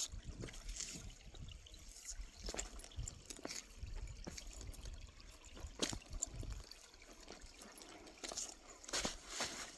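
A small stream of water trickling over rocks, with a few scattered clicks and a low rumble that fades about two-thirds of the way through.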